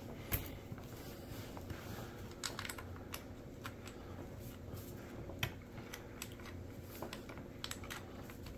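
Faint, scattered clicks and light ticks of small parts being handled as a screw is lined up and started by hand into the cross brace of a Caldwell Stinger shooting rest, with one sharper click a little past the middle.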